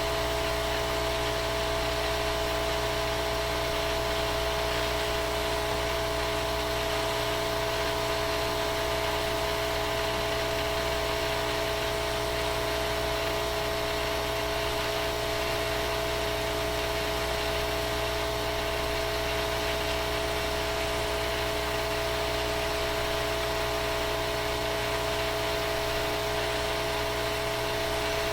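A small motor or fan running steadily with an even whir and a constant hum.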